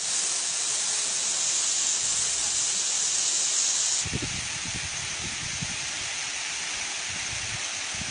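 A waterfall's falling water rushing steadily. About four seconds in, the sound changes abruptly from a bright hiss to a duller rush with more low rumble.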